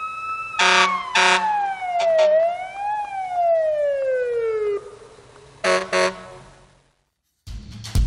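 Cartoon sound effects: a slide-whistle-like tone that glides down, rises a little about three seconds in, then glides down again. Two pairs of short honks sound about a second in and about six seconds in. After a brief silence, drum-led music starts near the end.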